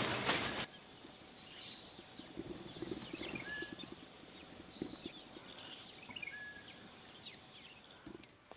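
Background music cuts off in the first second. Quiet dry-bush ambience follows, with several birds chirping and whistling in short calls over soft rustling and crackling.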